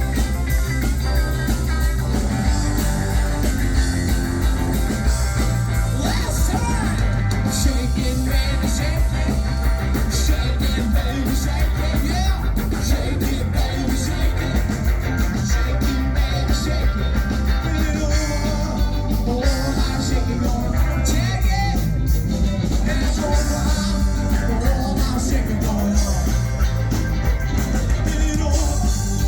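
Live band playing Americana rock music, with guitar prominent over a steady drum beat.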